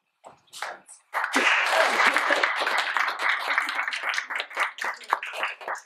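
Small audience applauding. The clapping starts suddenly about a second in and thins out toward the end.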